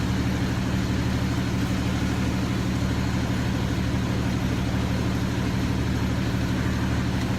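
Steady low drone of a fire-rescue vehicle's engine running.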